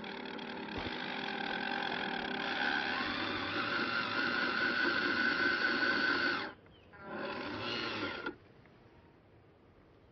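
Electric motor and gear drive of a 1:18-scale RC crawler whining as it climbs under load, the pitch edging up. It cuts off about six and a half seconds in, whines again briefly about a second later, then stops.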